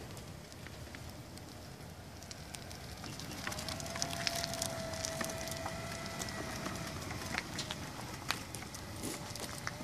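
Electric drive motors of a radio-controlled dog stroller built on a power-wheelchair base, whining steadily as it rolls over asphalt, with small crackles and ticks from the tyres. The whine becomes clear about three and a half seconds in.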